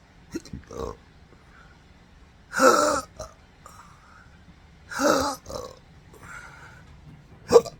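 A man's involuntary hiccups and throat burps: a few small catches, then two louder, pitched ones about two and a half seconds apart, and a sharp short hiccup near the end. They are the sign of intractable hiccups, a chronic condition from nerve damage that makes his diaphragm and breathing muscles contract on their own.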